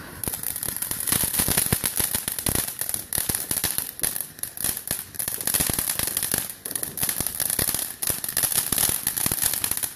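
Ground fountain firework spewing sparks: a steady high hiss packed with a dense, continuous run of sharp crackling pops.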